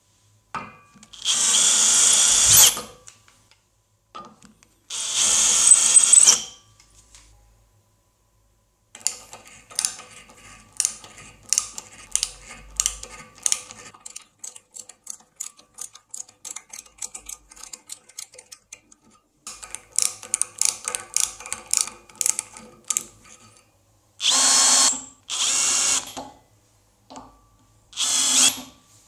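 A power tool run in short bursts of about a second each, twice near the start and three times near the end. In between come two stretches of quick small clicks and taps.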